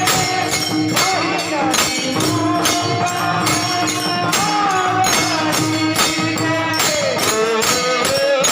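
Marathi devotional kirtan singing: a high solo voice sliding between notes over a held drone, with steady metallic percussion beats about three to four a second.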